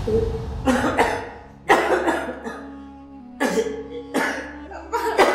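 An ailing man coughing in a string of about five short coughs, over soft background music.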